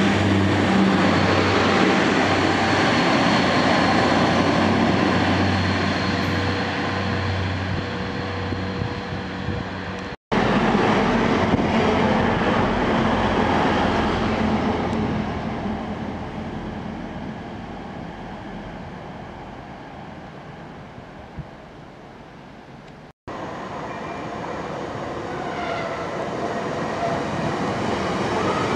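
Diesel multiple-unit trains running at a station, in three abruptly cut sections. First a train moves off with a steady low engine drone and rumble that slowly fades. After the first cut another train's sound fades away. After the second cut a Class 150 Sprinter unit approaches, getting louder near the end.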